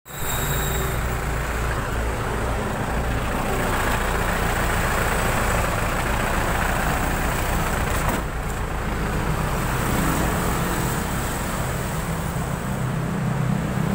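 Steady drone of a truck engine running, low and even, with road traffic noise around it.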